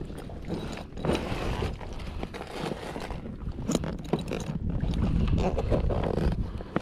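Water rushing and slapping against a Hobie Revolution 13 pedal kayak's hull and outrigger float as it moves, with wind buffeting the microphone and a few scrapes; it grows louder in the second half.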